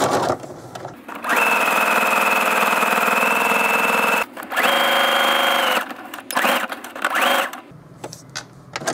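Electric sewing machine stitching a straight seam through lightweight cotton. A steady run of about three seconds with a held whine is followed by a shorter run at a slightly higher pitch, then two short bursts near the end.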